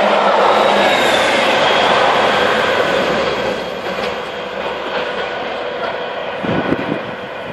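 Passenger coaches of a steam-hauled express running past at speed, wheels rattling over the rails. The noise drops away after about three seconds as the train recedes, leaving a few clicks and some low thumps near the end.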